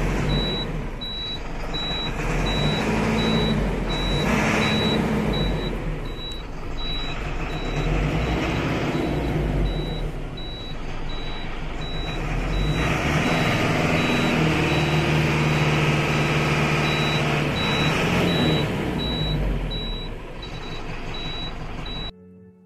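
Tata 912 tipper's four-cylinder 3.8-litre diesel engine idling smoothly, heard from inside the cab, with a high electronic warning beep repeating steadily over it. The engine grows louder about thirteen seconds in, and the sound cuts off just before the end.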